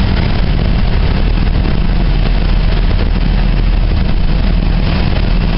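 A car engine running steadily, loud and close, with a strong low rumble and no change in pitch.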